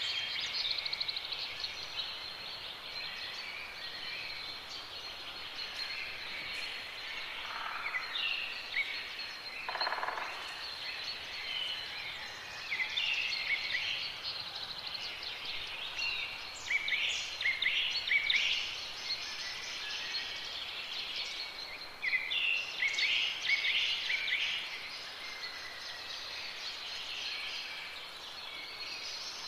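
Small birds chirping and twittering in repeated clusters of short high calls, over a steady thin high-pitched tone.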